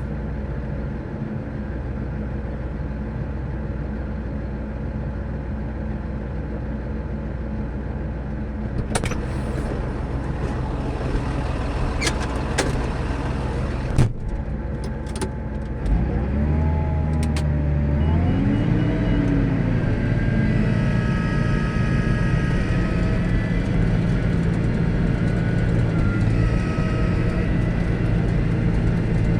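Large farm tractor's diesel engine running steadily. About halfway through there is a sharp click, then the engine note shifts with a brief rising-then-falling tone and runs on a little louder.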